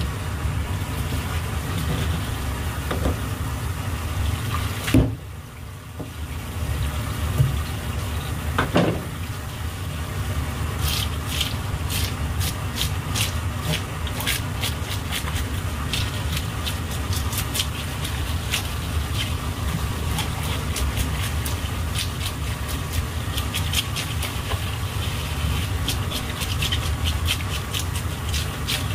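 Tap water runs and splashes onto a large black sea bream while a fish scaler scrapes off its scales, with many short scraping clicks from about eleven seconds in. The rush of water briefly dips after a sharp knock about five seconds in.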